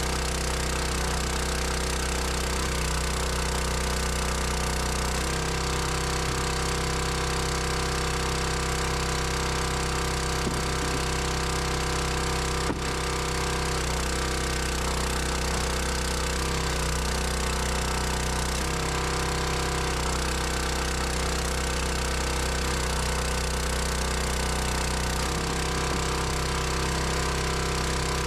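Engine running steadily at an even speed, with small shifts in its tone every few seconds and one sharp click about halfway through.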